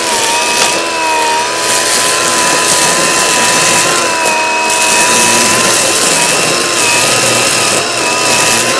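Milwaukee M18 Fuel cordless brushless string trimmer running on its low 'turtle' speed setting, cutting grass. It makes a steady high whine that wavers slightly in pitch, over the hiss of the spinning line.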